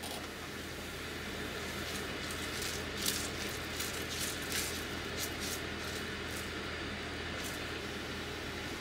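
Steady low room hum with a few faint clicks and rustles, as of small objects being handled.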